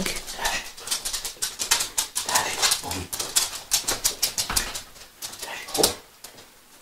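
A small dog moving about on a wooden floor: a quick, irregular run of clicks and taps from its claws and steps, thinning out and going quiet near the end.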